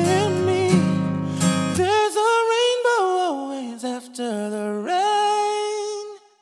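Closing bars of a ballad: a singer holds long, sliding notes over acoustic guitar backing. The backing drops out about two seconds in, and the voice carries on alone to a final held note that fades out near the end.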